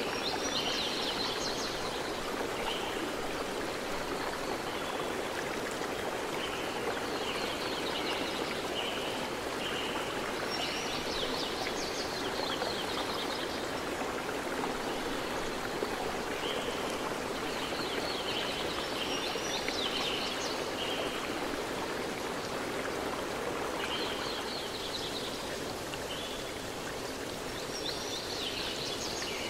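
Steady sound of running water, a flowing stream, with bird chirps and trills that come back every few seconds.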